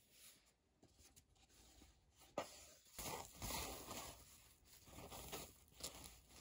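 White wrapping paper rustling and crinkling in several bursts as a pair of shoes is lifted from a cardboard shoe box and unwrapped, with a sharp click about two and a half seconds in.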